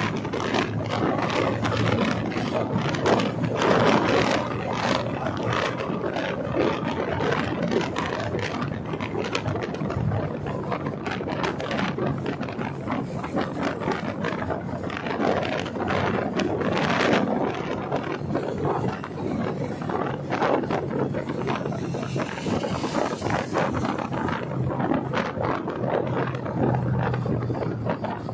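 Wind rushing and buffeting over the microphone of a moving motorcycle, with a faint steady engine hum and road noise underneath.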